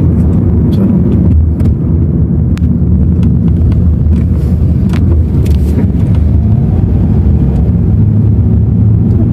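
Car being driven, heard from inside the cabin: a steady low rumble of engine and road noise, with a few faint clicks.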